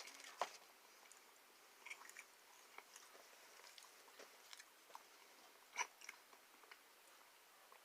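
Faint close-up chewing of pizza, with scattered wet mouth clicks and smacks; two louder ones come about half a second in and near six seconds.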